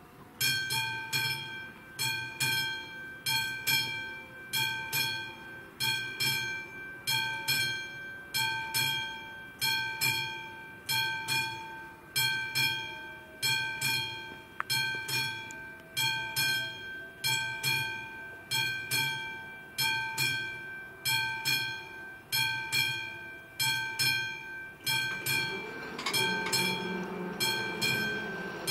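Warning bell of a Czech AŽD 71 level crossing starting up and ringing steadily, one bright ringing stroke a little more than once a second, which signals that the crossing is closing for an approaching train. In the last few seconds the low rumble of an oncoming freight train rises beneath the bell.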